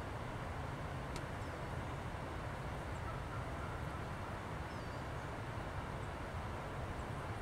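Steady low rumble of outdoor background noise, with a few faint high bird chirps.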